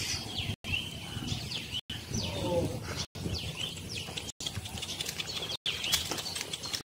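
Small birds chirping, with a brief pitched call about two seconds in. The sound cuts out for a split second about every second and a quarter.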